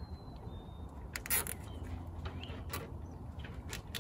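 Nylon zip tie being pulled tight around a mower's drive cable: a short ratcheting zip about a second in, then a couple of single clicks, over a low steady hum.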